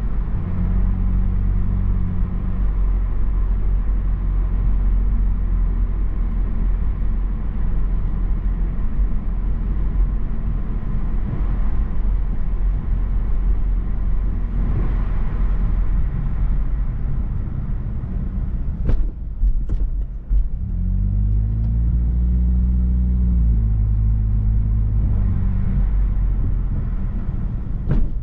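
Steady road and tyre rumble with the hum of a Mazda3 Turbo's turbocharged 2.5-litre four-cylinder, heard from inside the cabin while cruising. The engine note rises and shifts for a few seconds about three-quarters of the way through. A few short, sharp knocks come about two-thirds of the way in and again right at the end.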